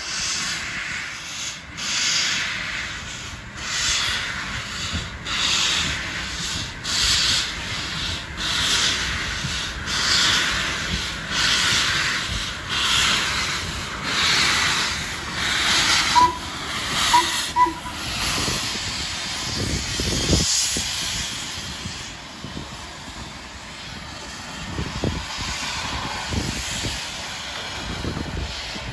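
LMS Ivatt Class 2 2-6-2 tank steam locomotive pulling away and approaching, its exhaust chuffing about every three-quarters of a second with loud hissing from the open cylinder drain cocks. The chuffing fades into a low rumble after about eighteen seconds as it passes.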